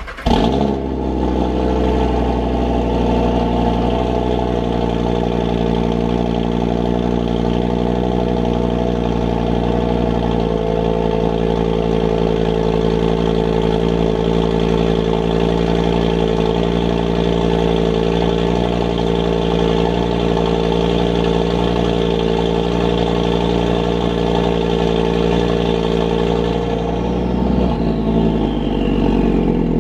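Audi RS3's turbocharged five-cylinder engine idling steadily, coming in abruptly at the start; its note changes about ten seconds in, and a faint falling whine comes near the end.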